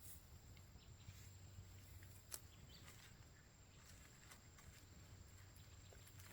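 Near silence: faint outdoor ambience with scattered small clicks and rustles, and one sharper click about two and a half seconds in.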